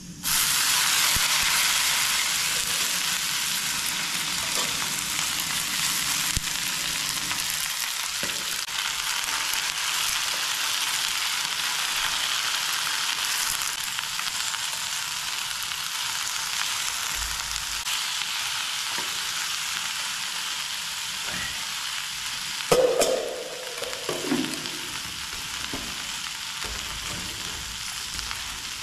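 Shredded cabbage hitting hot oil in a small frying pan on a camping gas stove: a loud sizzle starts at once, then the cabbage fries steadily as it is stirred with chopsticks, the sizzle slowly easing off. A brief louder clatter and scrape comes late on.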